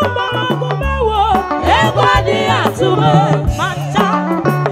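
Live band music amplified through loudspeakers: a woman sings a lead line with sliding, ornamented notes over drums, steady bass notes and keyboard.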